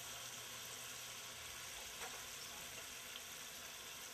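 Potato curry gravy of mustard oil and water simmering in a frying pan: a faint, steady sizzling hiss.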